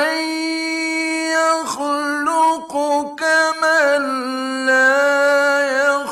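A man's voice in melodic Quran recitation (tajwid, mujawwad style), unaccompanied. It opens on a long held note, breaks into a few short phrases around the middle, then carries a long ornamented line, with brief pauses for breath.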